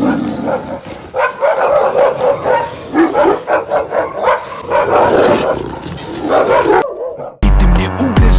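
Alabai (Central Asian Shepherd dog) barking over and over, a dozen or more short barks. Music with a heavy bass beat starts near the end.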